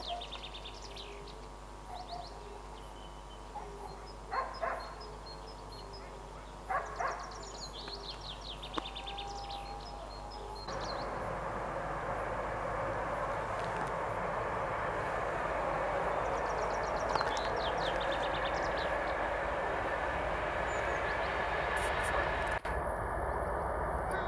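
Songbirds chirping and singing, then, about ten seconds in, the steady rumble of an approaching ER9M electric multiple unit comes in and slowly grows louder while the birds carry on.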